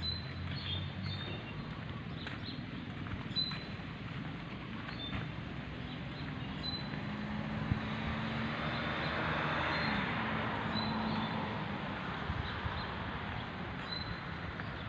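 Road traffic with one vehicle passing, rising to its loudest about halfway through and fading again, over short high bird chirps that repeat throughout.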